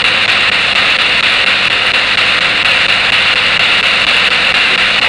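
Spirit box radio sweeping with no answer coming through: a steady, loud hiss of static with a faint low hum underneath.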